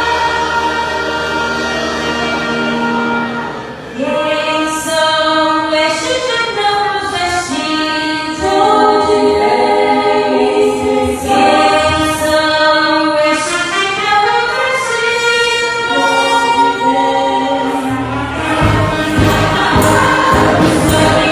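Church choir singing a gospel hymn in long held notes. Near the end the sound grows fuller, with a heavier low accompaniment coming in.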